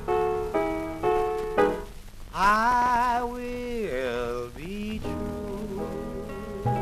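Instrumental intro of a 1952 R&B ballad record: slow piano chords struck about every half second. About two and a half seconds in, a loud held melody line with heavy vibrato takes over, then softer sustained chords.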